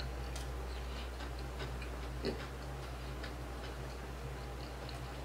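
Quiet chewing of a burger, with faint irregular small mouth clicks over a steady low hum.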